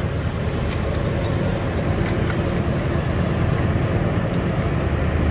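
Steady low drone of the fishing boat's engine, with scattered light metallic clinks from shackles and chain as a camera frame is fastened to the trawl net.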